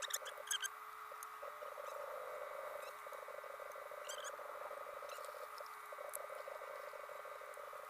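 A steady, fast-pulsing chorus of calling animals, with a few short high chirps about half a second in and again about four seconds in.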